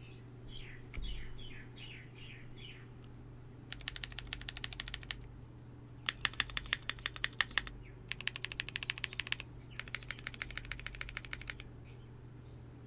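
Typing on a Keycult No. 2/65 custom mechanical keyboard with lubed Tecsee Zaku switches, a polycarbonate plate and PBT keycaps: clacky keystrokes in four quick runs of a second or two each. Birds chirp near the start.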